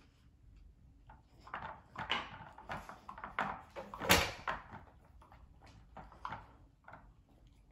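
Dogs nosing and pawing at plastic puzzle-feeder toys on a hardwood floor: a string of irregular short knocks and scrapes as the plastic lids and pieces are pushed about. The sharpest knock comes about four seconds in, and the sounds thin out toward the end.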